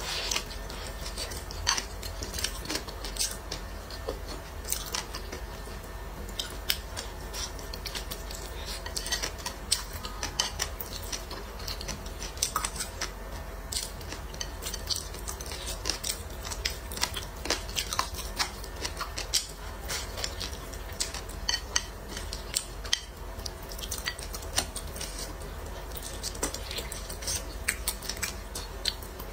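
Close-up eating sounds: wooden chopsticks tapping a plate and the chewing of soft braised eggplant and rice, heard as many small, irregular sharp clicks over a steady low hum.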